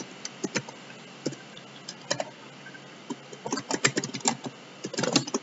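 Computer keyboard being typed on: scattered keystrokes at first, then quicker runs of keys from about three and a half seconds in.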